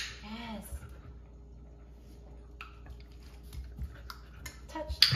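A short, drawn-out spoken word at the start, then a quiet small room with scattered faint clicks and taps.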